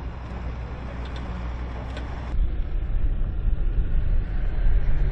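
Armoured military vehicle's engine running as it drives over rough ground, a low steady rumble that jumps louder and deeper about two seconds in.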